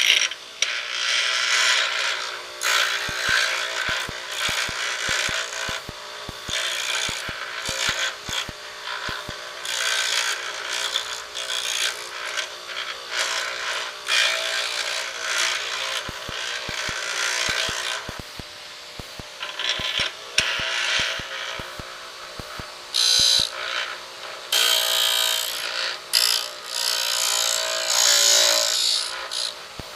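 Pedestal grinder running with a steady hum while a high-speed steel lathe threading tool, held in a grinding fixture, is pressed against the wheel in repeated passes: each pass is a bright grinding hiss that starts and stops, with the longest and loudest passes near the end.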